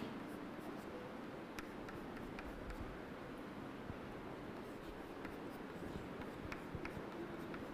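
Chalk writing on a blackboard: faint scratching with scattered light taps of the chalk as symbols are written.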